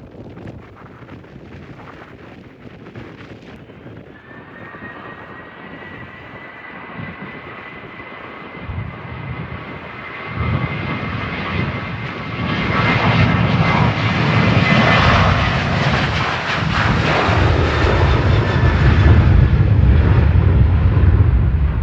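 Jet airliner's engines growing steadily louder as the plane approaches, with a steady high whine from about four seconds in. The sound is loudest over the last ten seconds.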